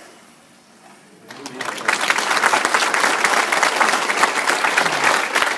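A church congregation bursts into applause about a second in; the clapping builds quickly and then holds loud and steady.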